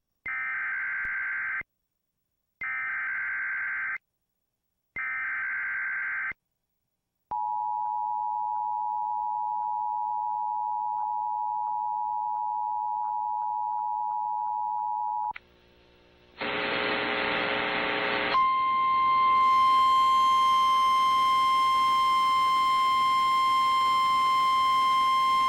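Emergency Alert System tones from a Sage ENDEC. First come three equal bursts of SAME header data, a shrill warbling digital squeal, then the two-tone EAS attention signal held steadily for about eight seconds. After a short gap and a burst of static, a single steady alert tone begins about two-thirds of the way in.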